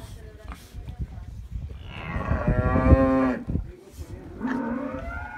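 Cattle mooing: one long moo about two seconds in, then another call near the end that rises in pitch.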